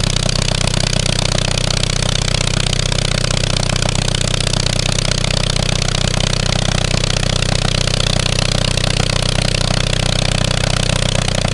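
Hawker Cygnet light biplane's piston engine running steadily on the ground, its propeller turning, at an even speed throughout.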